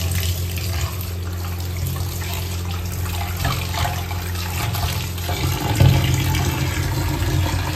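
Tap water running steadily into a steel bowl of raw chicken pieces in a stainless steel sink, splashing as a hand rubs and turns the chicken, over a steady low hum.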